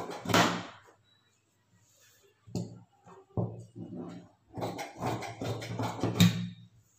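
Tailor's scissors cutting through two layers of fabric, main cloth with lining laid on it, in runs of crunchy snips with the cloth rustling as it is handled: one run in the first second, then more cutting from about two and a half seconds to six and a half.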